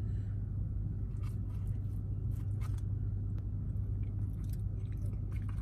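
Chewing and mouth sounds of a person eating a forkful of finely chopped pulled pork, with scattered soft clicks, over a steady low hum.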